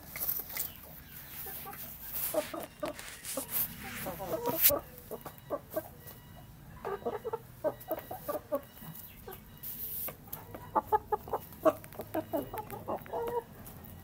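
Chickens (a rooster and two hens) clucking while they feed from a bowl. The clucks come in three short runs, with a few sharp knocks among them.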